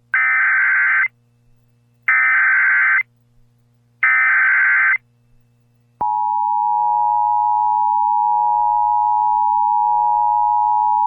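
Emergency Alert System broadcast tones: three bursts of about a second each of the warbling digital SAME header, a second apart, which encode the alert. About six seconds in comes the EAS attention signal, a steady two-tone alarm of 853 and 960 Hz played together.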